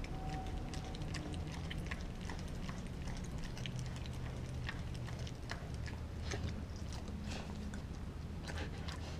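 Dog gnawing a frozen raw pig's foot, its teeth crunching and scraping on the hard frozen bone and skin in irregular sharp clicks.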